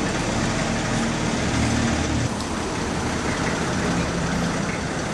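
Engine of a vintage bonneted single-deck bus idling steadily with a low even hum, while a car drives past in front of it near the end.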